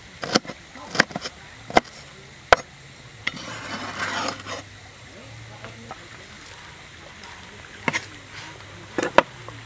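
Cleaver chopping on a wooden cutting board, four sharp knocks roughly a second apart, then a scraping as the chopped chillies and garlic are swept up on the blade. Near the end, a few more sharp knocks.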